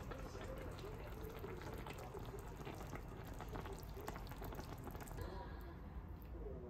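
A pan of braised chicken stew simmering, the thick sauce bubbling with many small pops.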